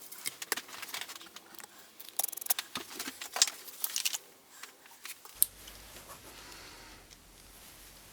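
Quick clicks, scrapes and rasps of small parts and tools being handled at a workbench, busiest in the first five seconds. After about five seconds they thin out and a faint, steady low hum comes in.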